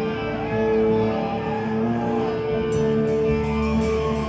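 Rock music with held, ringing chords and a few gliding notes; a steady cymbal tick comes in a little past halfway.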